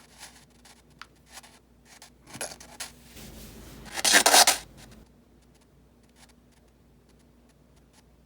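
Scattered small clicks and rubbing handling sounds, with a louder rustling burst about four seconds in, over a faint steady hum.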